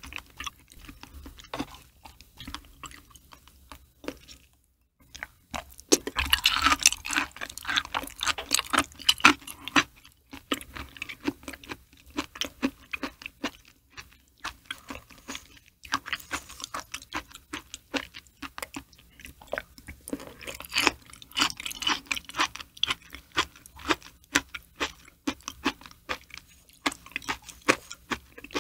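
Close-miked wet chewing of soft raw liver: a dense run of sticky, smacking mouth clicks. It pauses briefly about four seconds in and is louder in two stretches, around the middle and again later on.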